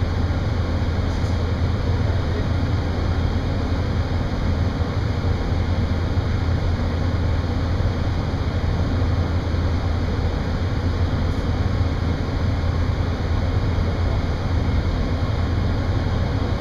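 LA Metro Red Line subway car departing the station, heard from inside the car: a steady low rumble of the train running on the rails, with no change in level.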